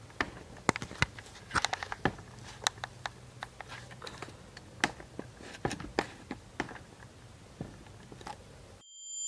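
Scattered, irregular light clicks and taps over a faint low hum, cutting off to silence just before the end.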